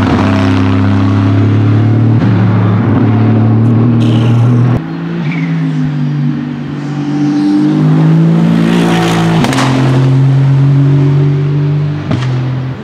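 Aston Martin Vantage GT3 race cars' Mercedes-AMG 4.0-litre twin-turbo V8 engines running at high revs past the trackside microphone. The engine note holds steady for a few seconds at a time and steps in pitch a couple of times, with a drop in loudness about five seconds in.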